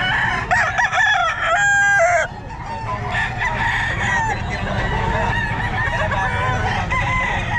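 Several gamefowl roosters crowing over one another, with some clucking, the loudest crows in the first two seconds; a steady low rumble runs underneath.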